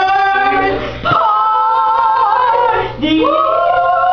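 Voices singing in mock-operatic style, drawing out a held note for about two seconds at a time, three notes in a row, with short breaths between them.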